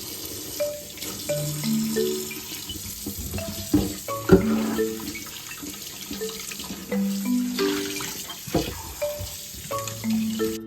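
Kitchen tap running into a sink, with a few sharp knocks, over light marimba-like background music.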